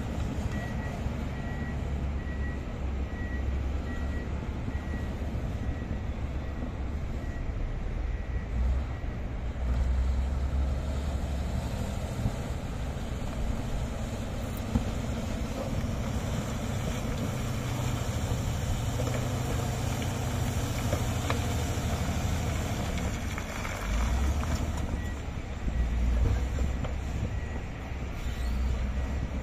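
Komatsu D155A crawler bulldozer's diesel engine running under load, its low note swelling and easing as it works. Over roughly the first third a faint backup alarm beeps about twice a second.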